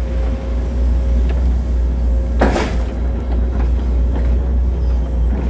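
CAT 308 excavator's diesel engine running steadily under load, a strong low drone with a faint steady whine above it. A short clatter comes about two and a half seconds in.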